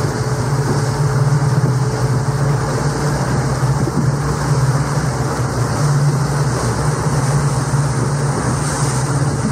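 Steady drone of a motorboat engine under way, over the rush of water and wind, heard from aboard a rigid inflatable boat.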